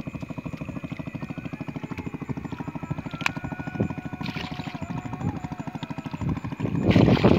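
A small engine chugging at a fast, even beat, with loud splashing of water near the end as a fishing net is hauled through it by hand.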